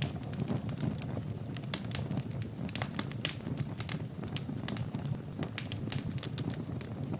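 Wood fire burning in a fireplace: a steady low rumble of flames with frequent irregular sharp crackles and pops.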